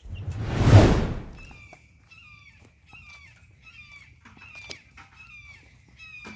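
A brief loud whoosh of noise about a second in, then a bird's short, falling call repeated steadily about every two-thirds of a second.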